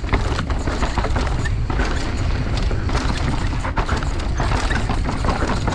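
Mountain bike descending a rough trail of loose dirt: steady wind rumble on the microphone, with frequent rattles and knocks from the bike and tyres going over bumps.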